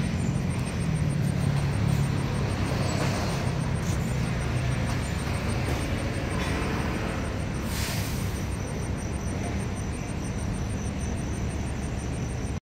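Steady engine and road noise of a moving vehicle, with a low engine hum that is strongest in the first few seconds.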